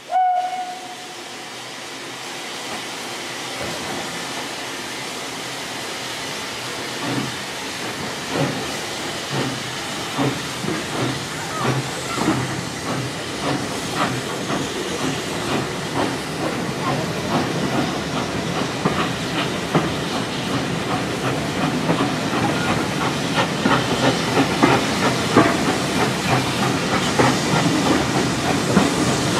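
Furness Railway A5-class 0-4-0 No.20 steam locomotive starting its train: a short whistle at the very start, then steady steam hiss. About a quarter of the way in, exhaust beats begin, slow at first and steadily quickening and growing louder as it pulls away.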